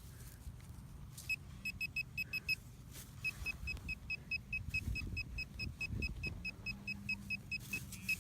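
Metal detector giving a train of short, high-pitched beeps, about four a second, as it sits over a target in the dig hole. Soft handling and digging thumps underneath.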